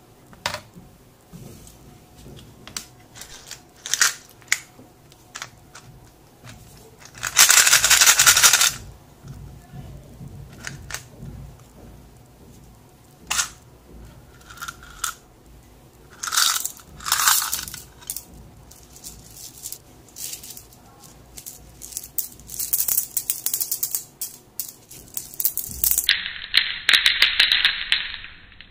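Handling a DeWalt 100-piece drill and screwdriver bit set: the clear plastic blister cover crackles and the plastic case clicks and knocks, with a loud crinkle of plastic about a third of the way in. Near the end, a handful of loose steel screwdriver bits clinks together in the hands in quick clicks.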